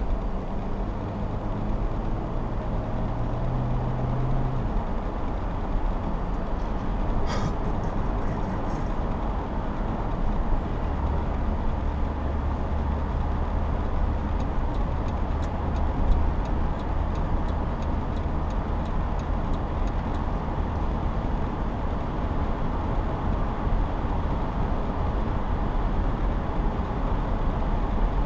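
Steady road and engine noise of a car cruising on a highway, heard from inside the cabin, with a low hum that shifts slightly in pitch and a single sharp click about seven seconds in.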